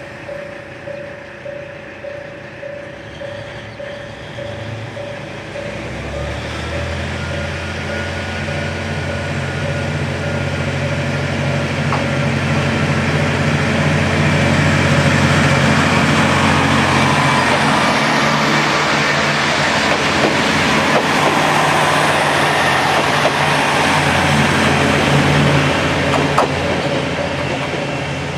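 KiHa 47 diesel railcar pulling away: its diesel engine comes in about six seconds in and builds as the train accelerates, then runs loud and steady before easing off near the end. A pulsing ringing tone sounds through the first several seconds.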